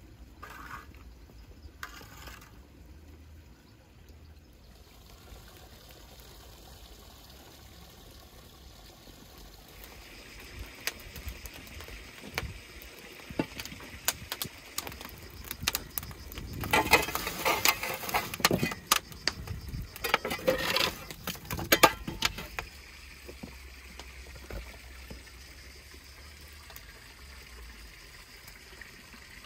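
Wood fire crackling in a brick oven: scattered sharp crackles, growing into a denser, louder stretch of crackling and rustling about midway through.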